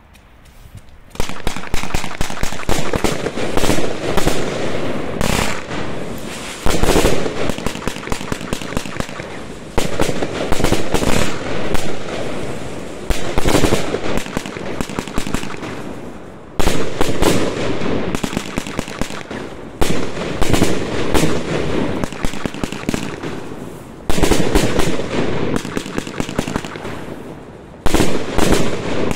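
Riakeo Deluxe compound firework cake of 25/30 mm calibre firing: a dense, rapid string of shots and bursts starting about a second in, with a sudden louder volley every three to four seconds.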